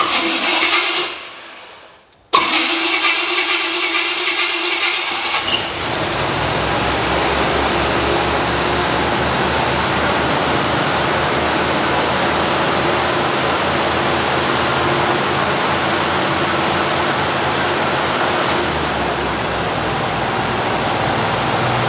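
Cadillac 368 (6.0 L) V8 being started for the first time after a timing chain and gear replacement. The starter cranks briefly and stops, cranks again about two seconds in, and the engine fires a few seconds later and settles into a steady idle.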